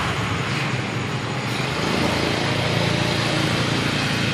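A motor or engine running steadily, with a low hum under a broad hiss.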